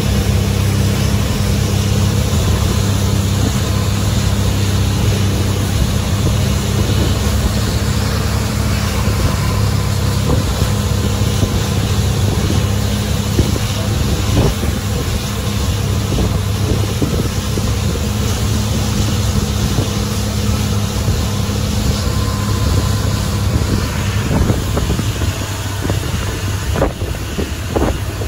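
Long-tail boat engine running at a steady cruising speed, a loud constant drone, with wind buffeting the microphone and water rushing along the hull.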